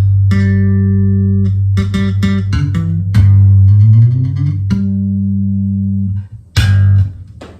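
Electric bass guitar played through a Markbass Little Mark 58R combo amp: long held low notes with sharp plucked notes between them and one note sliding upward about three and a half seconds in, ending on a short final note near the end.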